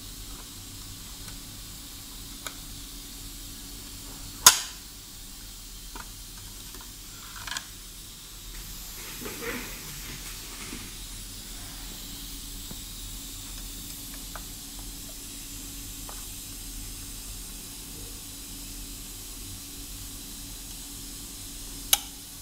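Clear glass and plastic optical panels inside an LCD projector being handled and seated, giving a few sharp clicks and taps: the loudest about four and a half seconds in, another near the end, and a short rustle of handling midway. A steady hiss runs underneath.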